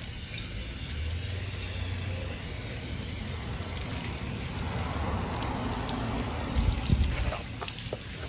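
Garden hose spray nozzle spraying water onto a scooter's rear wheel and engine, a steady hiss of spray, with a louder low bump about seven seconds in.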